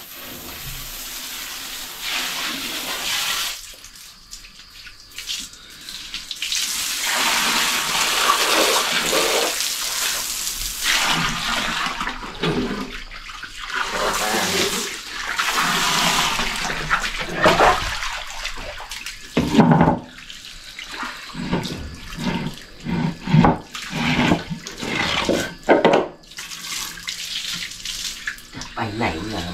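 Water from a garden hose spraying and splashing over a king cobra and onto a concrete floor, the flow rising and falling as the hose is moved, with sharper splashes in the second half.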